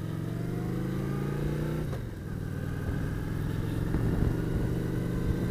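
Motorcycle engine accelerating: the revs climb for about two seconds, drop sharply as it changes up a gear, then climb again, with wind rumble underneath.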